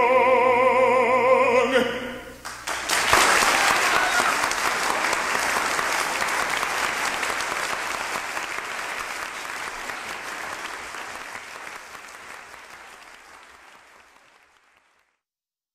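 A bass voice holds a long final note with a wide vibrato, cut off about two seconds in, then an audience breaks into applause that fades away steadily.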